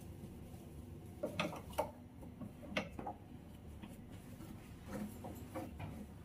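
Light, scattered clicks and taps, in a few small groups, as a cloth and hand wipe a glass-top gas stove around its steel burner bases.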